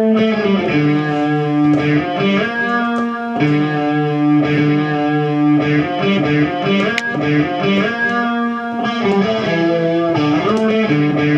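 Background music: an electric guitar playing held notes and chords that change every second or so.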